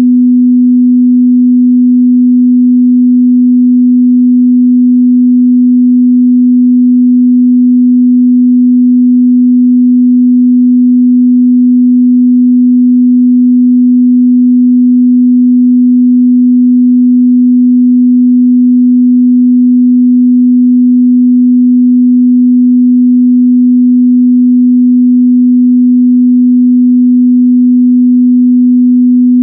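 A steady 248 Hz sine-wave test tone, a single pure mid-bass pitch held at constant loudness, used to check a speaker's or headphones' frequency response.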